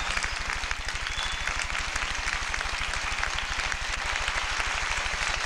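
Audience applauding: a dense, even patter of clapping, over a steady low electrical buzz.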